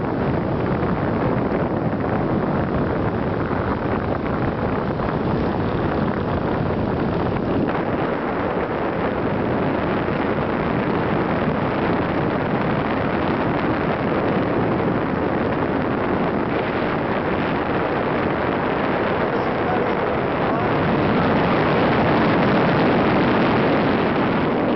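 Wind rushing steadily over the microphone in flight on a paraglider, growing a little louder near the end.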